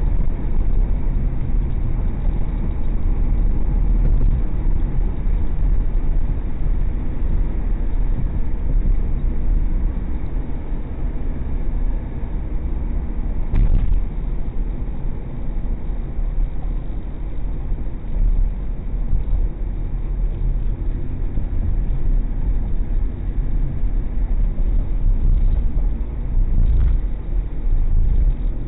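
Steady low road and engine rumble inside a car at highway speed, as picked up by a dashcam's microphone, with a single brief click about halfway through.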